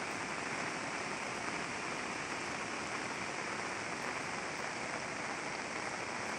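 Monsoon rain falling steadily on flooded paddy fields: an even, unbroken hiss.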